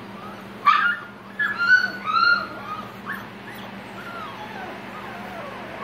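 Black Labrador puppies whining and yipping: a quick run of short high-pitched whines about a second in, trailing off into a few fainter ones, over a steady low hum.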